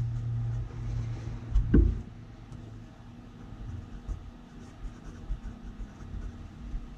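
Pen writing on paper: soft scratches and light taps as figures are written. Near the start a low hum runs and ends with a dull thump about two seconds in, the loudest sound.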